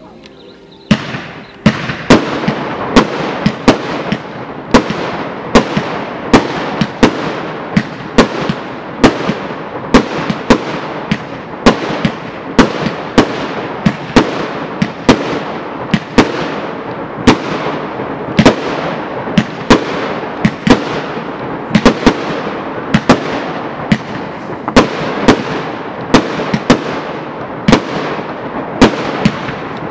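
Fireworks display: after a quiet first second, aerial shells burst in quick succession, roughly one or two sharp bangs a second, with a dense crackle between them.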